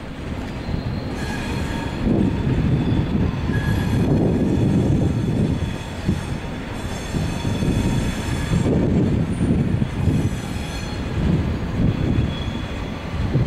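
SBB IC2000 double-deck passenger coaches rolling past, their wheels running steadily on the rails. A thin, high-pitched wheel squeal comes and goes.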